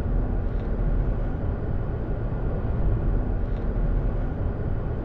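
Steady low rumble of a vehicle driving along: road and engine noise heard from inside the cabin.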